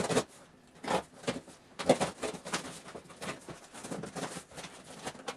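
Packing tape on a cardboard box being slit open with a knife and the box handled: a series of short scratchy rips and rustles, some louder than others.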